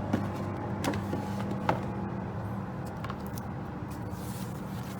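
Light clicks and knocks from a watch presentation box being handled, three sharp ones in the first two seconds and a fainter one later, over a steady low hum.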